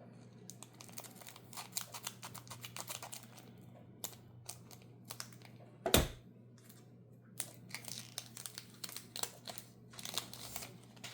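Foil wrapper of a Magic: The Gathering play booster pack crinkling and being torn open, with a rapid run of crackles and one sharp snap about six seconds in, the loudest sound.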